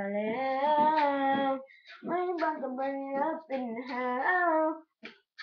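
A boy singing long, held, wavering notes without clear words, in two phrases with a short break about two seconds in.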